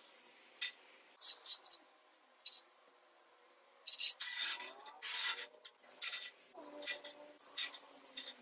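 Gloved hand brushing across a steel welding table top in short scraping strokes, the longest run about four to five and a half seconds in. Near the end, small steel parts give brief metallic clinks.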